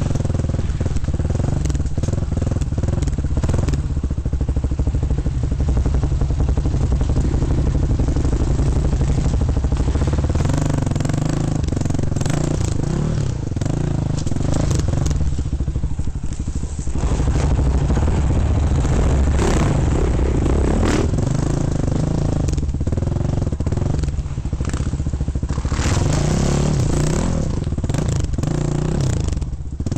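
Off-road dirt bike engine running and revving up and down several times, with clattering and scraping from riding over rough ground and brush.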